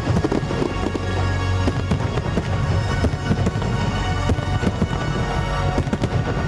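Fireworks going off in quick succession, many sharp cracks and bangs, with music playing underneath.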